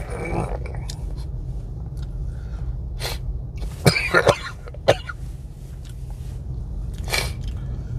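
A sick man coughing several times, short separate coughs spread out, with the loudest sharp cluster about four seconds in.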